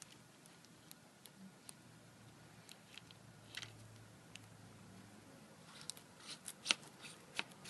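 Air cap and side block seal retaining ring being worked off the front of a Graco Fusion AP plural-component spray gun by hand: faint scattered clicks and light knocks of the parts, coming more often and louder near the end.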